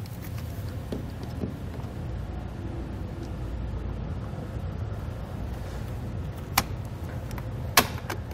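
Hand cutters snipping through a rubber vacuum hose: two sharp clicks about a second apart near the end, the second the louder. A steady low hum runs underneath.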